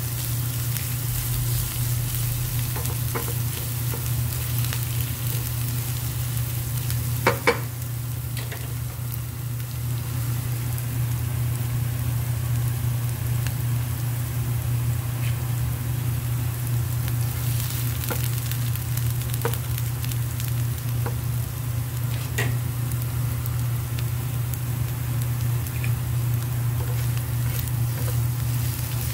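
Garlic sautéing in hot oil in a nonstick frying pan: a steady sizzle, with a spatula stirring and scraping the pan now and then. There is a sharp knock about seven seconds in, and a steady low hum underneath.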